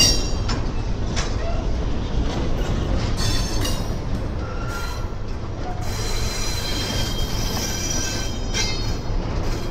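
Double-stack intermodal freight cars rolling past at a grade crossing: a steady rumble of wheels on rail, with thin high wheel squeals now and then and a few sharp clicks.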